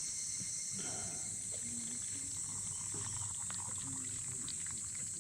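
Steady high-pitched chorus of insects, likely crickets, with scattered faint small clicks.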